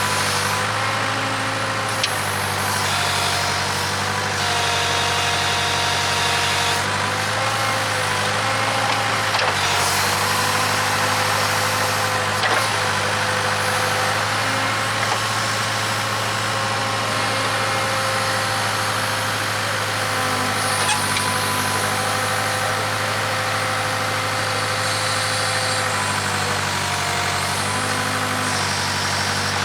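Case 580K backhoe's diesel engine running steadily under work, its pitch shifting slightly now and then, with a few sharp knocks.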